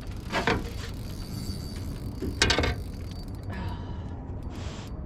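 Fishing reel clicking and whirring as a big fish is fought on the line, with two short sharper sounds, the loudest about two and a half seconds in.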